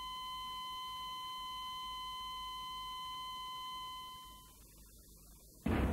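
Heart-monitor flatline sound effect: one steady high beep held for about four seconds, then fading out, the signal that no heartbeat is detected. Near the end a sudden loud low thud comes in.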